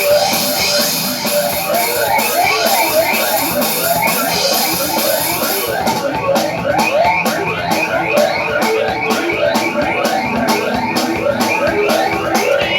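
Live rock band playing: electric guitar over a drum kit. About six seconds in the cymbal wash drops out and the drums carry on in a fast, even beat under the guitar.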